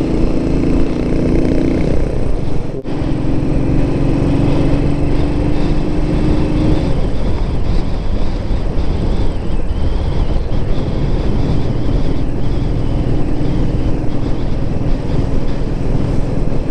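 Royal Enfield Thunderbird single-cylinder motorcycle engine running at a steady cruising speed, with wind rush on the microphone. About three seconds in, the sound dips briefly and the engine note settles a little lower.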